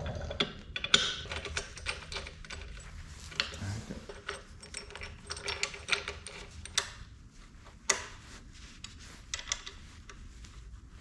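Irregular clicks, knocks and rattles of hand tools working on electric dirt bike parts, most likely while the fender is fitted.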